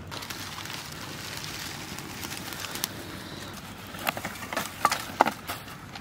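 A bundle of dry leaves burning with a steady hissing crackle as a fire is kindled in a brick ground stove. About four seconds in come a handful of sharp snaps and knocks as sticks are pushed into the fire.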